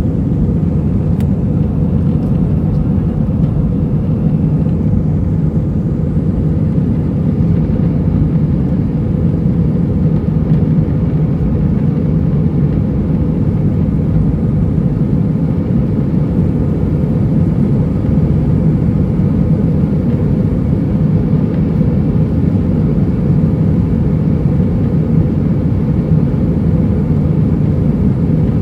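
Steady, loud rumble of airliner cabin noise: jet engines and rushing air heard from inside the cabin.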